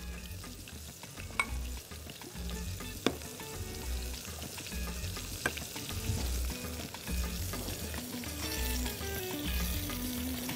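Steady sizzle of frying in oil on the stove, as a spoonful of flour is toasted in a little oil in a small saucepan and stirred: the start of a roux for a gravy. The stirring utensil clicks sharply against the pan a few times.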